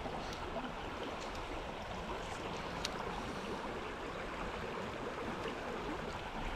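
Small, shallow creek flowing over a rocky bed: a steady rush of running water.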